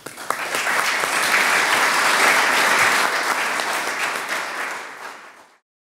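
Conference audience applauding: many people clapping, quickly swelling to full strength, then easing off before it is cut off suddenly near the end.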